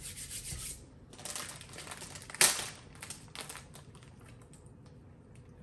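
Plastic snack packets crinkling and rustling as they are handled, with one sharp crackle about two and a half seconds in, then a few faint ticks.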